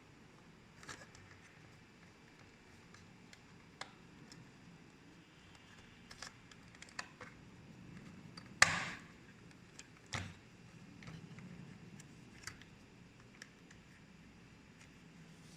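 Scattered light clicks and taps of small parts being handled, with a louder short clatter a little past halfway and another knock about a second and a half later.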